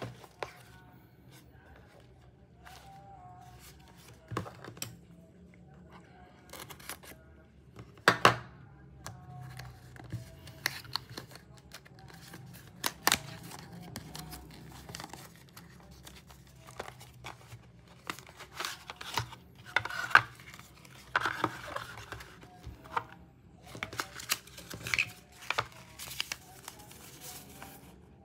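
A small cardboard retail box being handled and opened by hand: the card flap scraping and tearing open, and the paper insert and folded manual rustling and sliding out, in irregular sharp clicks and scrapes.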